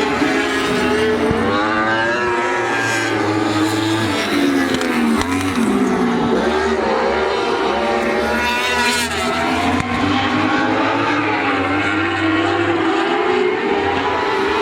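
Several lightning sprint cars with motorcycle engines racing together. Their engines rev up and down in pitch as the cars go around the track.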